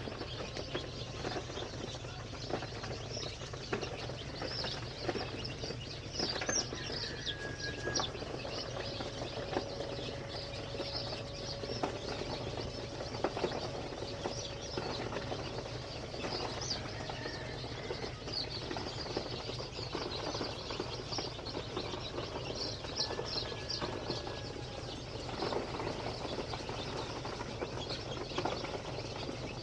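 A flock of local chicken chicks peeping constantly in short, high chirps, with small scratching clicks among them, over a steady low hum.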